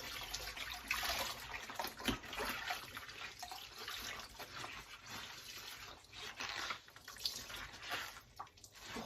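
Wet laundry being washed by hand in a sink of water: clothes lifted, squashed and wrung, with irregular sloshing, splashing and dripping.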